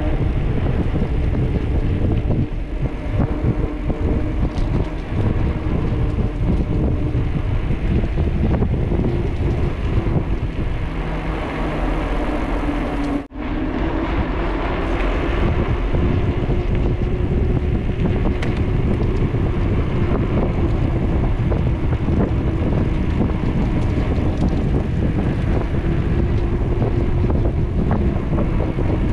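Steady rush of wind over the microphone of a camera on a moving bicycle, with a faint hum of tyres rolling on the paved trail. The sound drops out briefly near the middle.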